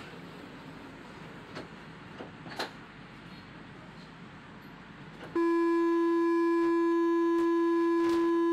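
Tram running quietly along the rails with a few light clicks, then, about five seconds in, its warning horn sounds one long, steady, loud note.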